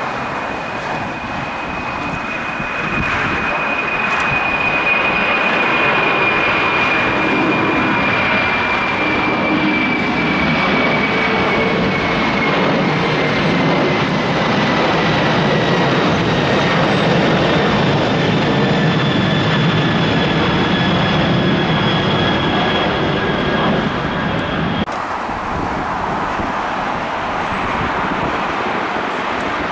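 Boeing 747-400 freighter's four jet engines at takeoff power as it climbs out, a loud steady rumble with a high whine that slowly falls in pitch as the jet passes and draws away. About 25 seconds in the sound cuts abruptly to another four-engine jet, an Airbus A380, roaring on takeoff.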